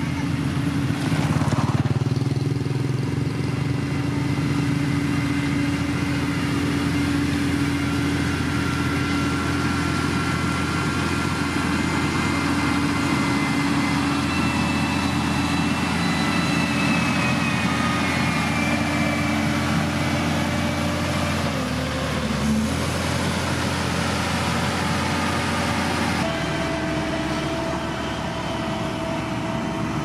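SANY motor grader's diesel engine running steadily as the machine pushes and spreads gravel, with small motorbikes passing. The engine's pitch shifts a few times.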